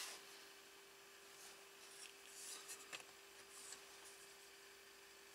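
Faint rubbing and scraping of a thin sheet-metal cover being handled and fitted over an LCD panel's metal back, with a few light clicks in the middle, over a faint steady hum.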